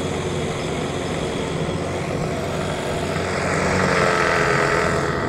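Boat's outboard motor running steadily, with a higher whine that swells about three and a half seconds in and then eases.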